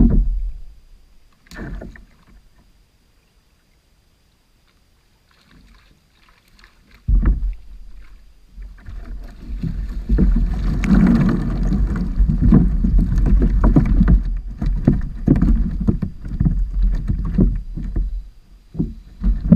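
Two short knocks, then after a few quiet seconds a cast net full of baitfish is hauled out of the water and into a plastic kayak. Water splashes and streams off the net, and a busy run of knocks and thumps follows as the net and flapping fish hit the hull.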